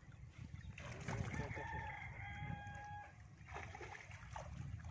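A rooster crows once, starting about a second in and holding a steady note for over a second before it breaks off.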